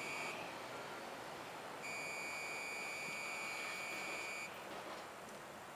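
A high, steady electronic beep sounding in long pulses: it stops just after the start, comes back about two seconds in, holds for about two and a half seconds, and cuts off. Under it, the faint rumble of a Silverliner V electric commuter train pulling away, fading near the end.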